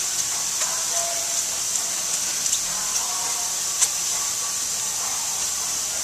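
Steady high-pitched hiss, with faint murmuring voices and a few light clicks and taps, the sharpest about four seconds in, as a gloved hand scuffs a plastic headlight lens.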